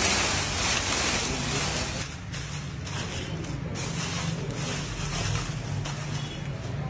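Dry tendu leaves rustling and crackling as they are tipped out of a jute sack onto a concrete floor, then shuffled and spread by hand in softer, choppier rustles from about two seconds in.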